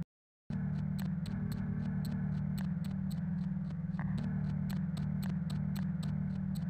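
Low electronic humming drone of several held tones, with a steady ticking of about four clicks a second over it. The sound cuts out completely for about half a second at the start, then resumes.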